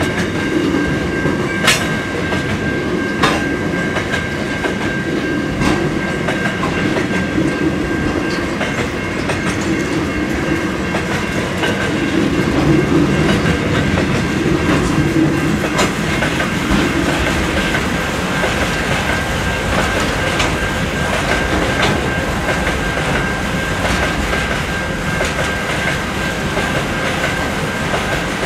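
Freight train wagons rolling past: steel wheels running on the rails in a continuous rush, with a few sharp clicks over the rail joints and a thin steady high ring above the noise.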